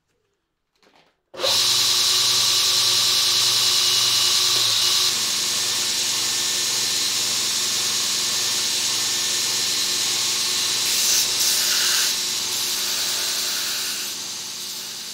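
Belt grinder switching on about a second in and running with a steady, high hissing whine as a steel knife blade is ground against the abrasive belt; the sound eases off near the end.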